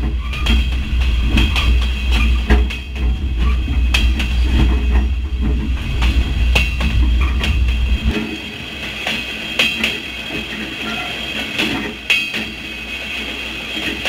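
Train wheels rolling on the rail, heard close beside the bogie: a steady rumble with a high ringing tone and irregular sharp knocks as the wheels strike the rail joints. The deep part of the rumble drops away about eight seconds in.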